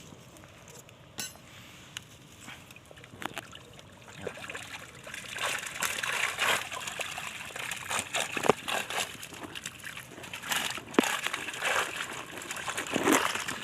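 Freshly caught fish splashing and thrashing in water as the catch is checked, in irregular sloshing bursts. These start faintly and grow busier about four seconds in.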